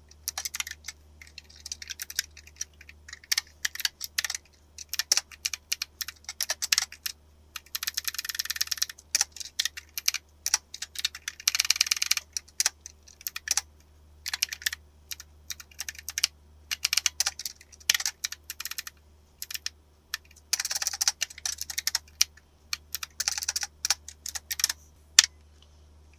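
Typing on a computer keyboard: irregular keystrokes with several quick runs of rapid key presses, over a faint steady low hum.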